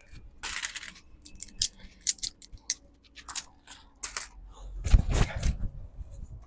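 Loose coins clinking and clacking as copper-plated steel coins jump up and snap onto a powerful fishing magnet held over a heap of copper coins: a run of sharp separate clicks, with a heavier, deeper clatter about five seconds in.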